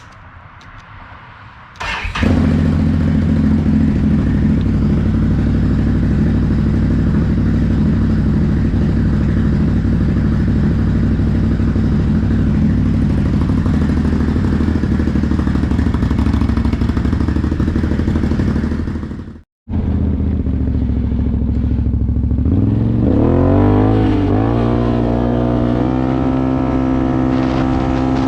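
Can-Am Outlander 1000R ATV's V-twin engine starting about two seconds in, then idling steadily. After a brief cut, it revs up and pulls away on its newly fitted CVTech primary clutch, the pitch rising and then holding steady at a higher speed.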